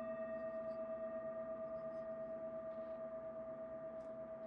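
The long ringing tail of a single struck bell-like chime, several tones sounding together and fading slowly, with a steady wobble in loudness.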